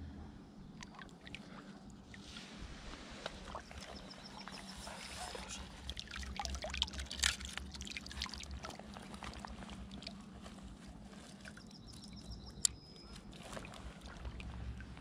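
Shallow river water splashing and trickling as hands and a dripping landing net move in and out of it, with scattered drips falling back onto the surface. The splashing is busiest in the middle, and there is one sharp click a little before the end.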